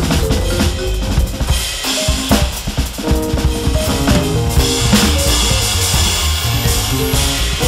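Roland V-Drums electronic drum kit played in a jazz four-beat groove, with dense kick, snare and rim hits. It runs over a sequenced backing track from a Maschine Studio, with a low bass line and a run of stepped pitched notes.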